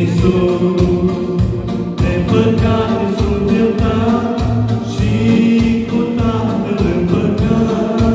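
A man singing a Romanian worship song into a microphone, with amplified keyboard accompaniment and a steady beat.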